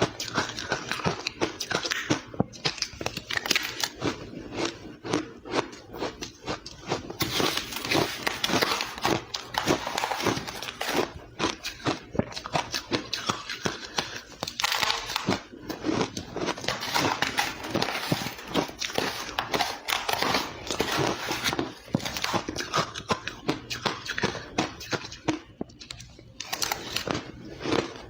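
Close-miked chewing of ice, a continuous run of dense crunches and crackles as the ice is bitten and ground between the teeth.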